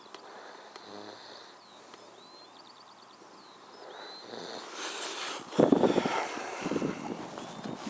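A man snoring loudly in rough, rattling strokes, starting about five and a half seconds in. Before that there is only a quiet outdoor background with faint small-bird chirps and a short trill.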